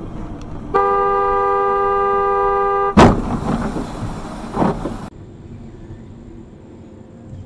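A car horn sounds steadily for about two seconds, then cuts into a loud collision impact, a car crash, followed by crunching and a second thump. It ends suddenly, leaving quieter road noise.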